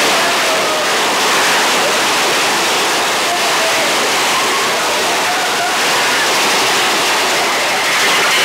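Mine-train roller coaster running at speed along its track, making a steady, loud rushing noise, with faint riders' voices in it.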